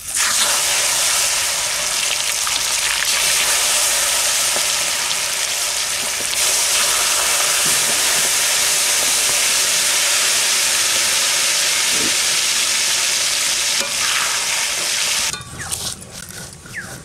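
Raw mango pieces sizzling loudly as they are tipped into hot mustard oil in an iron kadai, a steady frying hiss. It swells a little about six seconds in as more pieces go in, then cuts off near the end.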